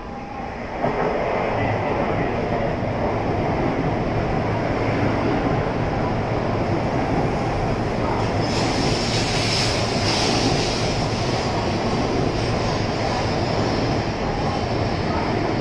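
N700A-series Shinkansen pulling into the platform and slowing, a steady loud rush of wheels and running gear that swells abruptly about a second in as the nose draws level. A higher hiss joins for a few seconds just past the middle.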